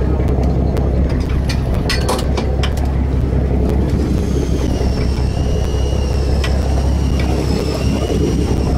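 Boat engine running steadily with a low drone. A thin high whine comes in about four seconds in and holds.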